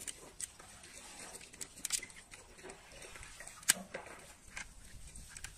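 Handling noise from a die-cast metal model car: a scattering of small sharp clicks and taps as fingers turn it and work its opening doors, with one louder click a little past the middle.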